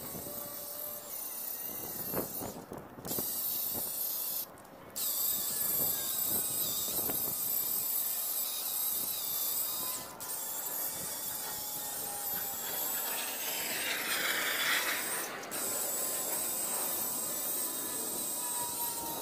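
Electric angle grinder running with a paint-stripping disc, scouring old paint off steel tubing with a steady high whine and hiss. The sound breaks off briefly a few times, and the scouring grows rougher for a moment a little after the middle.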